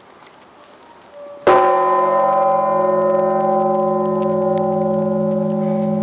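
The 7150 kg All Saints church bell struck once, about a second and a half in. It rings on with a low hum under many higher steady tones, fading only slowly.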